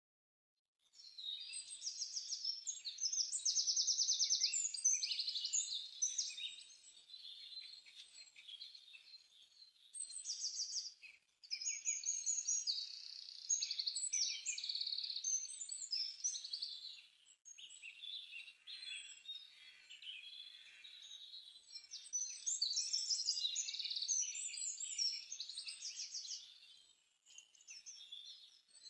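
Songbirds singing: rapid high trills and chirps overlapping almost throughout, with a quieter patch and a few brief breaks.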